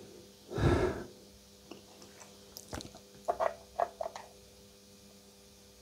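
Small clicks and light scratching of a screwdriver in a tube amplifier's bias trim pot, bunched together about three to four seconds in, after a short soft whoosh like a breath about half a second in. A faint steady hum runs underneath.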